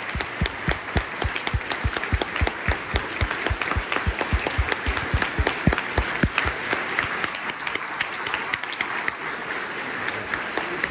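Audience applauding, with one pair of hands clapping close by, about four claps a second for the first six seconds or so, then fading back into the general applause.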